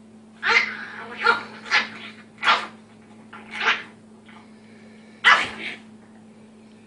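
Dog barking: about six short, sharp barks at uneven intervals.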